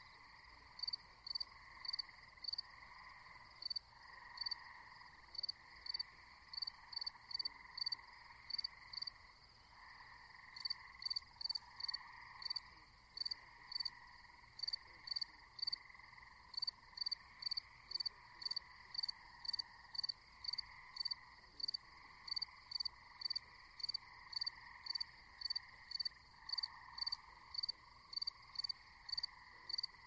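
Night pond ambience: crickets chirping in short high chirps, about two to three a second, over a continuous chorus of frogs calling as a low, wavering drone.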